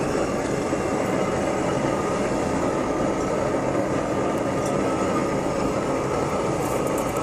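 Gas blowtorch burning with a steady hiss as it preheats the hot-bulb head of a Lanz Bulldog semi-diesel engine before starting.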